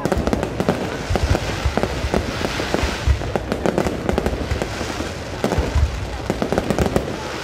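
Aerial fireworks going off in a dense barrage: rapid, overlapping bangs and crackling, several a second, with a few heavier booms among them.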